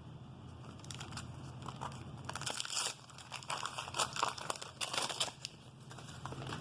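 Wax-paper wrapper of a 1988 Donruss baseball card pack crinkling and tearing as the pack is ripped open, in a run of crackles that starts a couple of seconds in and lasts about three seconds.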